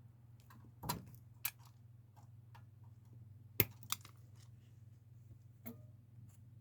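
A few sharp clicks and small handling noises from working electrical wire with hand tools, the loudest about three and a half seconds in, over a faint steady low hum.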